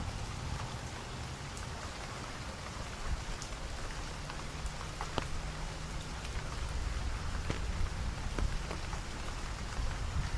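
Steady rain falling, with scattered sharper drop hits ticking over it and a low rumble underneath.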